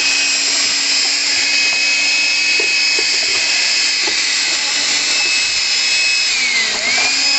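Milwaukee cordless handheld vacuum running steadily with a high motor whine and a rush of air as its crevice nozzle sucks out an air filter box. There are a few small ticks in the middle, and its pitch dips and recovers about six seconds in.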